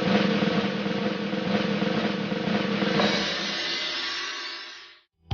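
A drum roll from a music sting, with a hit about three seconds in that rings on and fades out.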